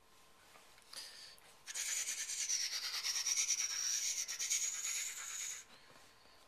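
Scratchy rubbing of a hand roughing up a cat's fur close to the microphone: a short rustle about a second in, then about four seconds of steady, fast rubbing.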